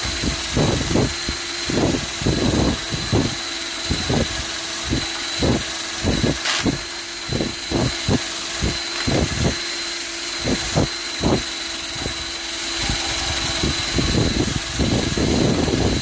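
Cordless power drill-driver running steadily, with repeated short irregular bursts of knocking as it works fasteners on a gas boiler. The motor winds down just after the end.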